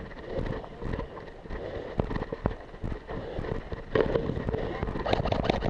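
Airsoft guns firing: scattered sharp pops and clicks, coming thicker in the last second or so.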